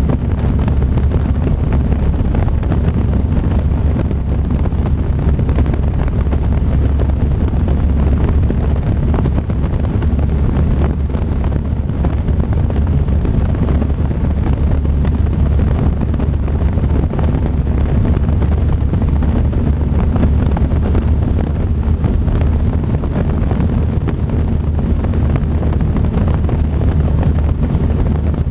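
Ercoupe's piston engine and propeller droning steadily in cruise flight, heard inside the cockpit with a rush of wind over the microphone.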